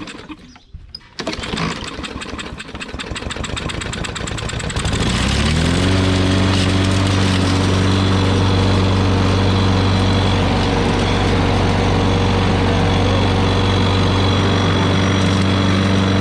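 Four-stroke walk-behind lawn mower engine with a bent crankshaft starting: it fires unevenly for a few seconds, climbs in pitch about five seconds in, then runs steadily at speed.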